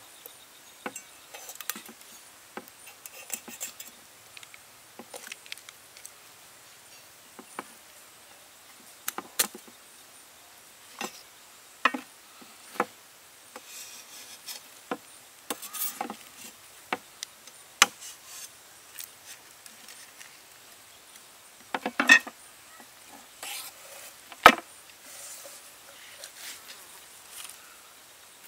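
Sporadic light clicks, taps and knocks of cooking work, as of utensils and ingredients being handled, with a few sharper knocks. A faint steady high insect drone sits underneath.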